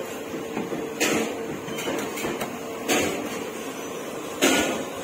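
Indoor room noise: a steady low hum with three short, noisy clatters, about one, three and four and a half seconds in.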